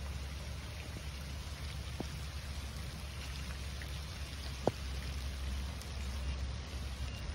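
Steady rain falling, with a constant low rumble underneath and a few sharp drip taps, the clearest about two and five seconds in.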